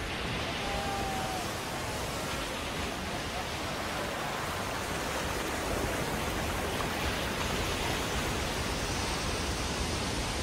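Heavy surf breaking over rocks: a steady rush of churning white water.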